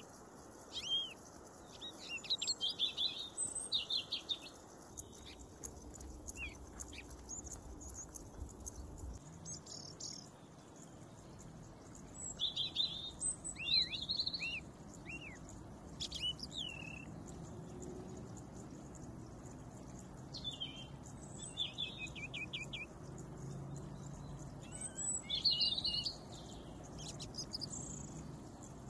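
Small birds singing and calling: bursts of short high chirps and arched whistled notes every second or two, with a quick rapid trill now and then.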